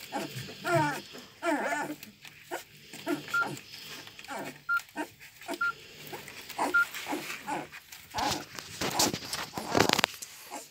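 Newborn puppies whimpering and squeaking while suckling: many short, wavering high-pitched cries, with a few brief clear squeaks in between. A stretch of rustling comes near the end.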